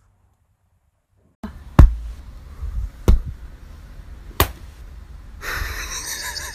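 A dog's paw slapping down on a person's hand, three sharp slaps about a second and a quarter apart, the first the loudest, after a second and a half of near silence. A steady rush of noise follows near the end.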